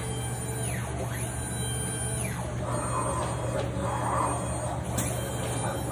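TOSH Logica 03 pad printer running a print cycle: its electric axis motors whine in repeated falling-and-rising sweeps as the pad head, ink cup and rotary actuator move, over a steady low hum.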